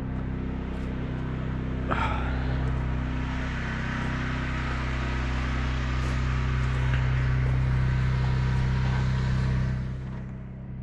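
A steady, low mechanical hum like an engine running, slowly getting louder and then dropping off about ten seconds in.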